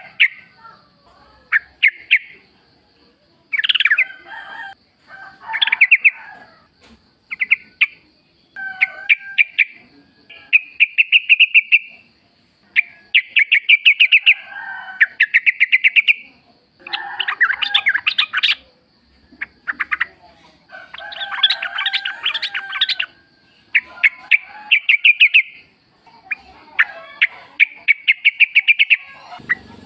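Yellow-vented bulbuls singing: short bursts of quick, bubbly repeated notes and chattering phrases, one after another every second or two. A faint steady high tone runs underneath.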